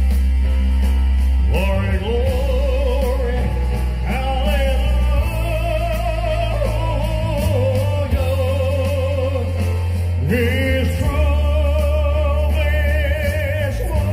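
Live vocal music through a PA over a backing track: long held sung notes with a wide vibrato, new phrases coming in about one and a half, four and ten seconds in, over a steady deep bass.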